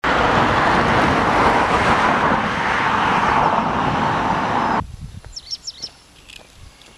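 Loud, steady rushing noise that cuts off abruptly just under five seconds in, followed by birds chirping faintly.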